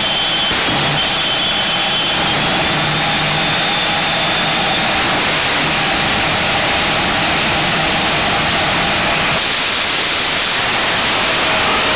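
Jet truck's jet engine running with its afterburner lit: a loud, steady rush with a high whine above it that steps up slightly in pitch about two seconds in.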